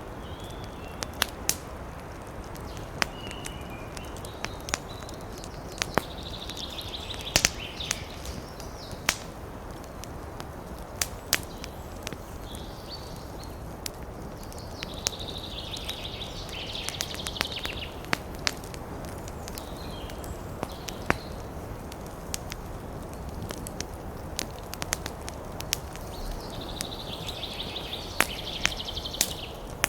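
Wood fire in a fireplace crackling, with scattered sharp pops over a steady low rumble of the burning. Three times, for two or three seconds each, a higher hiss rises among the crackles.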